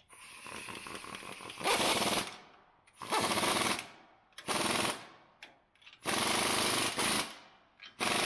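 Pneumatic impact wrench tightening the snowplow mount bracket bolts on a Ford F450. A softer run comes first, then about five loud bursts of rapid hammering, each under a second or so long.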